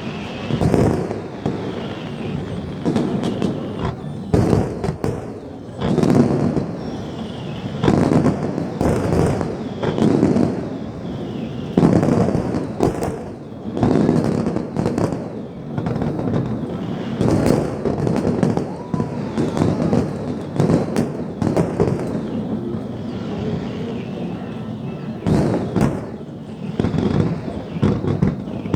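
Fireworks display: aerial shells bursting one after another, sharp booms every second or so, each trailing off in an echoing rumble.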